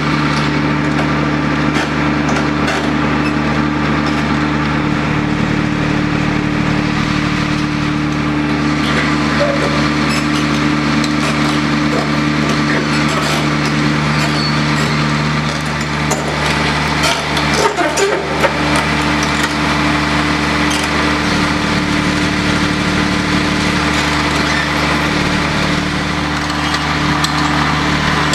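Kleemann Mobirex Evo 110 tracked impact crusher's engine running at a steady hum while the machine crawls on its tracks, with light clicks and creaks from the crawler tracks and a short run of sharp cracks and knocks a little past halfway.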